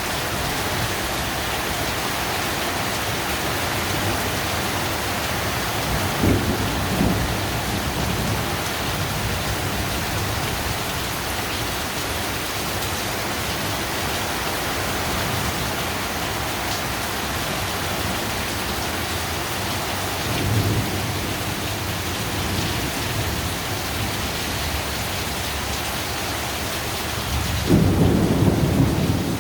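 Heavy rain pouring steadily in a thunderstorm, with thunder rumbling about six seconds in and again around twenty seconds, and a louder, longer rumble of thunder near the end.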